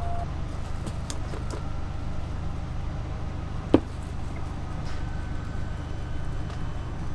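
A steady low mechanical hum, like a motor running, with a few faint clicks and one sharp click a little past halfway.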